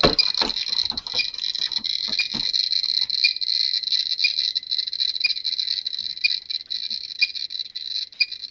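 Geiger counter clicking very rapidly in a dense, continuous stream, with a brighter tick about once a second: a high count from a strongly radioactive test sample. A few handling knocks come in the first two seconds.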